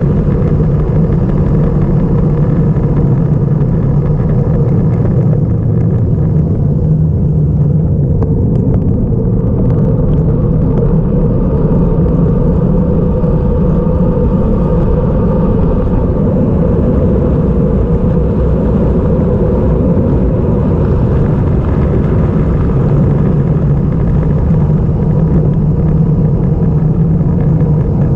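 Steady, loud rumble of wind buffeting a GoPro's microphone on a road bike descending a mountain pass at speed.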